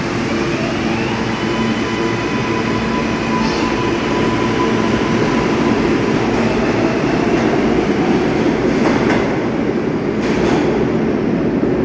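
New York City subway L train pulling out of the station: steady motor hum and wheel-on-rail noise, with the propulsion whine rising in pitch about a second in, and a few sharp clicks of wheels over rail joints near the end.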